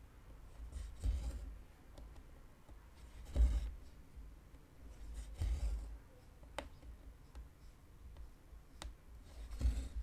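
Cotton embroidery floss drawn through taut 14-count cross-stitch fabric in a hoop: about four soft rasping swishes of thread through cloth, a couple of seconds apart, with two sharp ticks in the second half.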